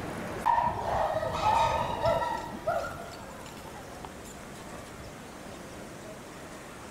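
Chimpanzee calling: a quick series of high-pitched cries over the first three seconds, then they stop.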